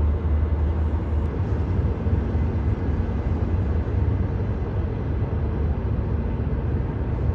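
Steady low rumble of a CR200J Fuxing train running along the line, heard from inside a passenger carriage, with a faint steady hum over it.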